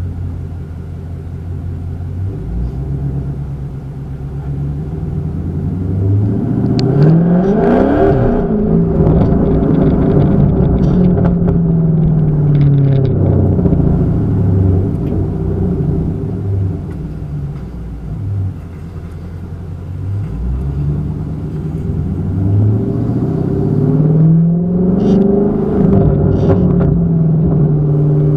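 Dodge Scat Pack's 392 HEMI V8 through a catless exhaust: idling, then revved up twice, with pops and crackles as the revs fall after the first rise and again during the second.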